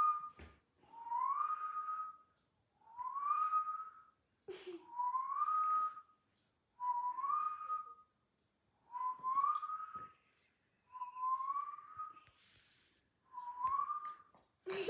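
A person whistling to a German Shepherd puppy: a short rising note that levels off, repeated about seven times, roughly every two seconds.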